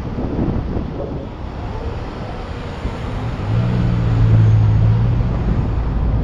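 Vehicle driving, heard through an action camera mounted on its outside: wind buffeting the microphone over a low road rumble. Partway through, a steady low engine hum rises over it and is the loudest sound for about a second and a half.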